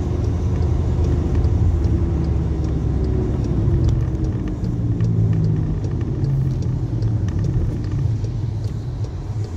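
Car driving, heard from inside the cabin: a steady low engine and road rumble, easing off near the end as the car slows.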